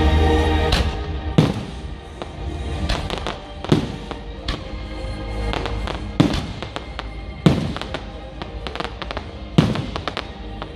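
Aerial fireworks bursting: five loud bangs a second or two apart, with crackling stars between them. Music plays underneath.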